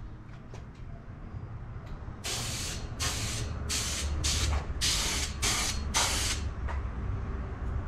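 Paint being sprayed in seven short hissing bursts, one after another, each under a second long.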